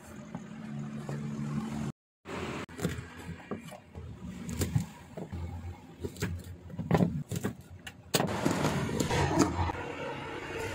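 Chef's knife chopping yardlong beans (sitaw) on a wooden cutting board: irregular sharp knocks of the blade striking the board, over a steady low background noise.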